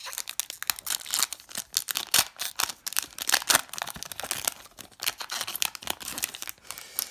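Foil wrapper of a trading-card pack crinkling and tearing as it is ripped open by hand, an irregular crackle that dies away near the end.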